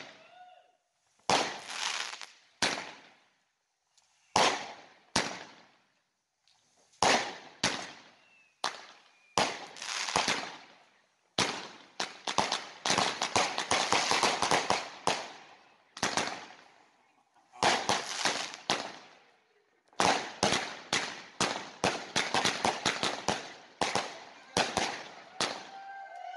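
Chained consumer firework batteries firing: sharp bangs in clusters with short pauses, a dense run of rapid crackling bangs around the middle, and quick volleys of shots near the end.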